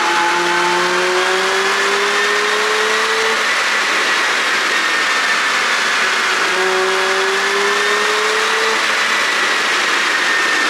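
2022 Porsche Panamera 4's twin-turbo V6 running under way, its note rising slowly twice, over heavy steady road and wind noise.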